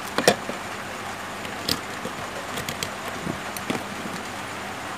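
Small sharp clicks and taps of a bare phone circuit board and metal repair jig being handled on a bench mat, the loudest near the start and a few lighter ones later, over a steady background hiss.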